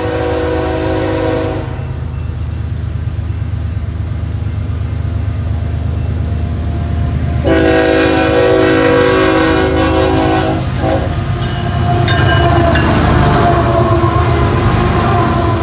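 Diesel locomotives of a BNSF freight train approaching and passing: the air horn sounds for about the first two seconds, then again in a longer blast from about seven and a half to eleven seconds. Under it runs a steady diesel engine rumble that swells as the locomotives go by near the end.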